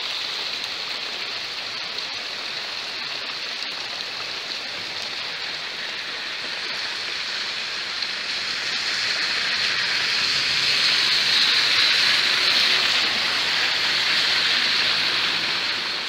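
Heavy rain falling, a steady hiss that grows louder through the second half.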